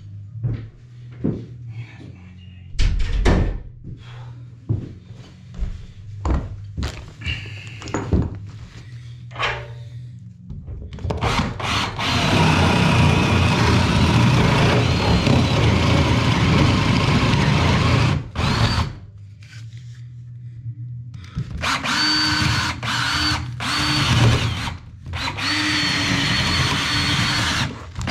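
A series of knocks and taps, then a handheld power tool running in two long runs of about six seconds each, the second with a steady whine.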